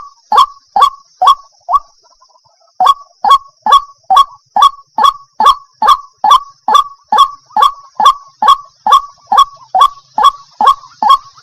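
Waterhen calling: a loud, sharp note repeated evenly a little more than twice a second, with a short pause after the first second and a half before the calls resume at the same pace.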